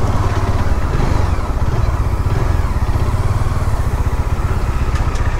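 Motorcycle engine running steadily with an even, low pulse.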